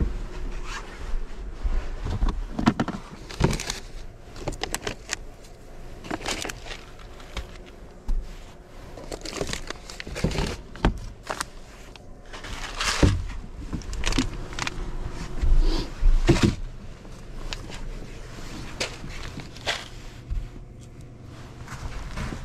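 Someone rummaging through gear and packaged food and setting things down: irregular knocks and clunks, with the crinkle and rustle of plastic and paper packaging.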